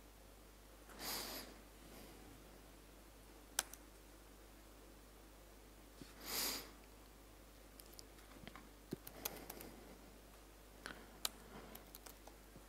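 Faint laptop keyboard typing: a lone keystroke about three and a half seconds in, then scattered keystroke clicks through the second half. Two short breathy sniffs, about a second in and about six seconds in, are louder than the keys.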